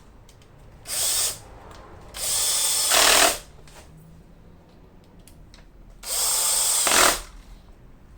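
Power drill/driver run in three short bursts while driving in screws: a brief one about a second in, a longer one a second later, and another near the end.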